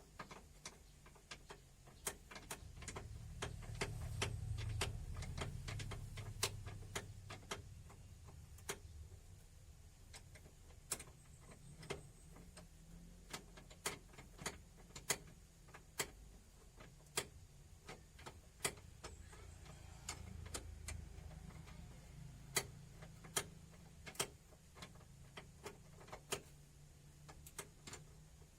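Faint, irregular sharp clicks and light metallic taps, about one or two a second, from hand tools working on a steering gearbox. A low rumble swells a few seconds in and again about two-thirds of the way through.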